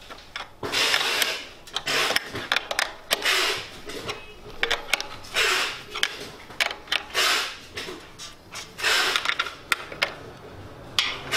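A ratchet wrench tightening the motor's mounting bolts into a wooden table: about six short ratcheting strokes a second or two apart, among scattered sharp clicks and knocks.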